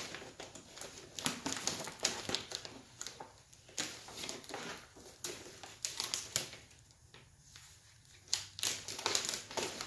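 Packaging of a set of head gaskets being opened by hand: irregular crinkling, rustling and sharp clicks, quieter for a moment about seven seconds in.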